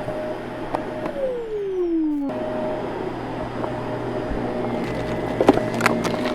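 Vacuum cleaner motor running steadily. About a second in, its pitch falls for about a second, then it cuts back abruptly to the steady running tone. A few sharp clicks sound near the end.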